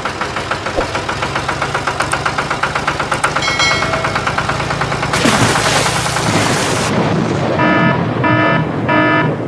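Engine sound effect of a tractor or truck chugging with a fast, even beat. A burst of noise comes about five seconds in, then three short horn beeps near the end.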